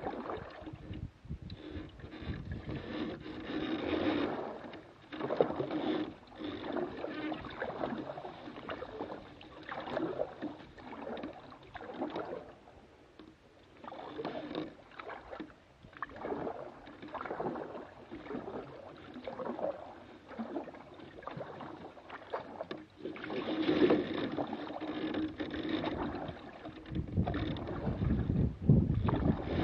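Water splashing and gurgling around a small boat's hull as it moves along a river, in uneven swells every second or two. Near the end a louder, lower rush comes in, like wind on the microphone.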